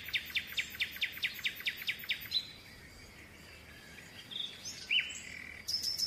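Birds chirping: a fast run of repeated chirps for the first two seconds or so, a few separate calls a little later, then a higher, rapid trill beginning near the end.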